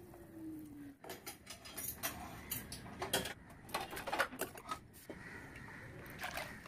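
A run of sharp clicks, clinks and knocks from cookware and utensils being handled, a metal ladle against a steel pot and a blender jar beside a glass bowl. Near the end there is a softer steady hiss.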